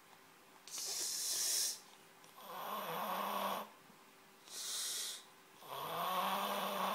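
Someone snoring in a slow, regular cycle: a pitched, rattling snore lasting about a second alternates with a hissing breath, about one full snore-and-hiss every three and a half seconds.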